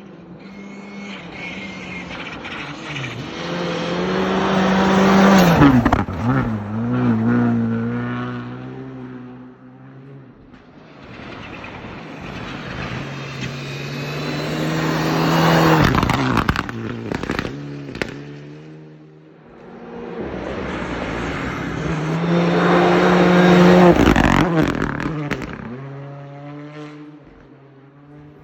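Three rally cars passing one after another, each engine note swelling as it approaches and dropping in pitch as it goes by. Sharp exhaust pops and bangs follow the passes, most clearly after the second one.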